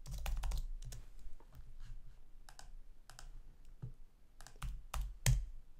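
Typing on a computer keyboard: a quick run of keystrokes, then scattered single key presses, the sharpest one near the end.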